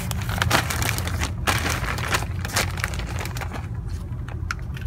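Irregular crackling and crunching handling noises, a few sharp clicks a second, over a steady low rumble.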